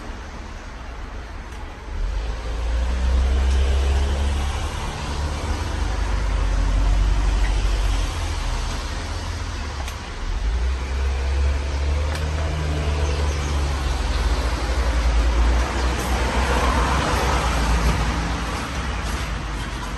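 A 60-inch Fanimation Enigma ceiling fan running, its airflow buffeting the microphone as a steady low rumble with a faint motor hum. The rumble grows stronger about two seconds in.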